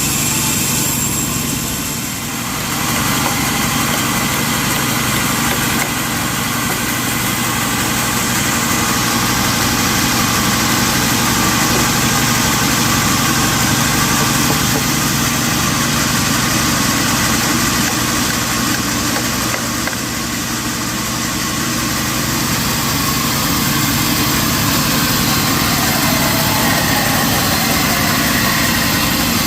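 Sawmill machinery running steadily, a continuous mechanical drone with a steady hum. It dips briefly about two seconds in and again around twenty seconds in.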